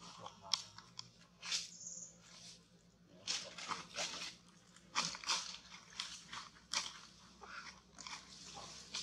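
Dry leaf litter crunching and crackling in an irregular scatter of short dry clicks, with a short high squeak about two seconds in.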